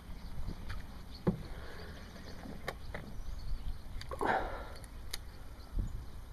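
Low rumble of wind and handling on the microphone, with a few light clicks and a short rustle about four seconds in.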